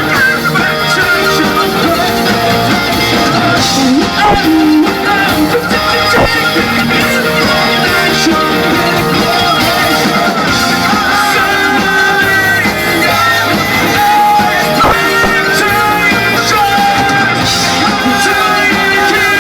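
Live rock band playing a song, with a singer's voice over guitars and drums.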